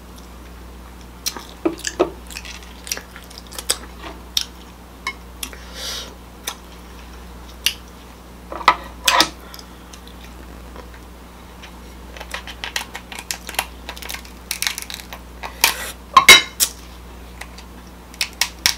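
Kitchen scissors snipping through the shell of a cooked king crab leg, and the shell cracking as it is pried open. It is a run of sharp clicks and crunches, thickest near the end.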